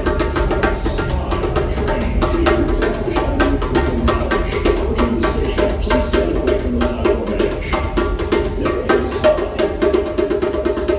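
Djembe played by hand: a fast, unbroken stream of slaps and tones.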